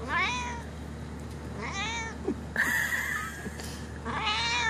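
Calico kitten meowing about four times in quick, high-pitched calls, one of them a short held note in the middle.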